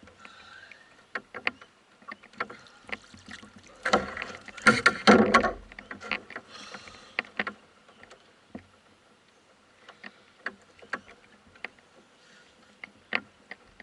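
Clicks and knocks of fishing gear being handled in a canoe during a fight with a fish, with one louder rush of noise lasting about two seconds, about four seconds in.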